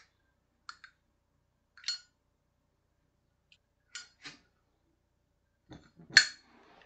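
Zippo lighter's metal case being handled: a scattering of short metallic clicks and clinks, with the loudest, ringing clink about six seconds in.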